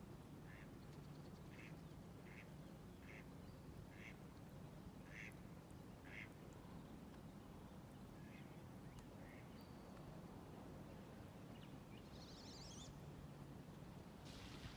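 Faint duck quacking: a run of short quacks, one or two a second, thinning out after about nine seconds. A brief high bird chirp follows near the end.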